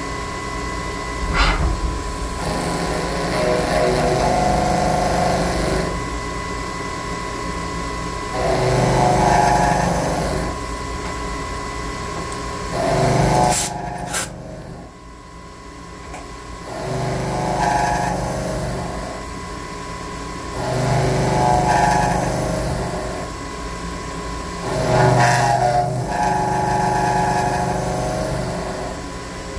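Milling machine cutting an optic pocket into a Glock 34 pistol slide for an RMR sight: a steady machine whine, with louder cutting passes of about two seconds each, roughly every four seconds. Near the middle there is a sharp click, and the machine drops quieter for a few seconds before the passes resume.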